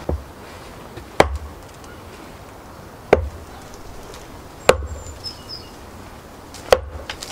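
Axe blows splitting a log on a wooden chopping block: four sharp knocks, each with a dull thud, about one and a half to two seconds apart.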